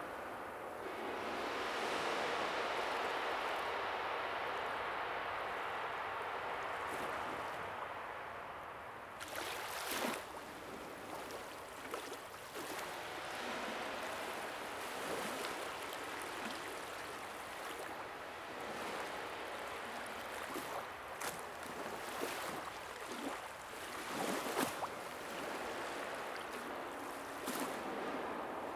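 Steady rushing water noise, with a few brief louder swishes through it.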